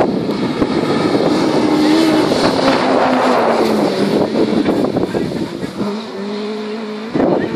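A rally car's engine going past at speed, its note falling in pitch as it passes, then holding steadier and fainter before it fades. Wind buffets the microphone.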